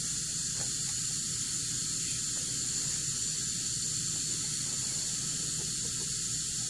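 A steady, even hiss with a faint thin high tone in it and no change in level; no sound of the floss handling stands out above it.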